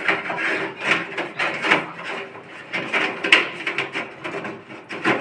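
A box being handled and closed by hand: irregular knocks and clicks with rubbing and scraping in between.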